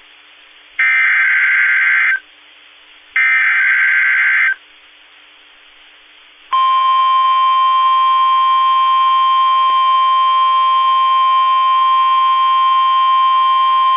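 Emergency Alert System SAME header: two loud buzzing data bursts of about a second and a half each. About halfway through, NOAA Weather Radio's long, steady single-pitched warning alarm tone (1050 Hz) begins, signalling that a new warning message follows.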